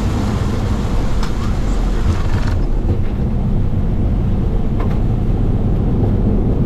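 Steady low rumble of a Boeing 737 cockpit, with airflow and engine noise. A hiss above the rumble drops away abruptly about two and a half seconds in, and a few faint clicks sound.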